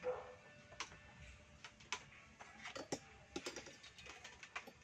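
Scattered light clicks and taps at irregular intervals from small tools and parts being handled on a workbench.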